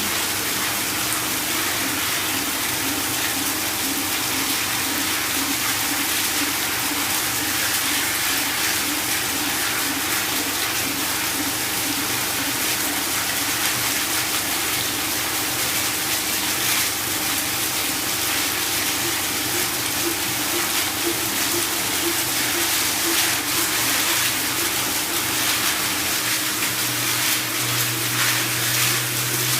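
CNC machine cutting a ring groove in Inconel under flood coolant: a steady hiss of coolant spray over an even machine hum, with a lower tone joining near the end.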